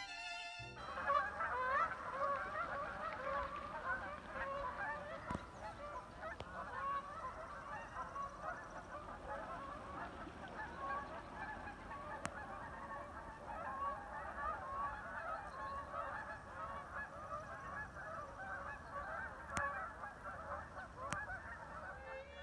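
A large flock of birds calling constantly, a dense chorus of many overlapping short honking calls, with a few faint clicks.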